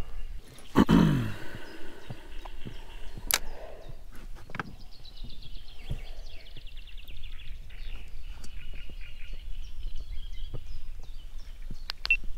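Open-air lakeside ambience from a small boat: a brief falling, low sound about a second in, a few sharp knocks, then a long, fast, high-pitched trill from a wild animal in the background.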